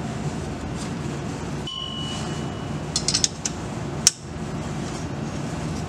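Metal-on-metal clinks and clicks of a wrench tightening the bolts of a driveshaft center-support carrier: a short ringing ping, a quick run of clicks about three seconds in, and one sharp click just after four seconds, over a steady low hum.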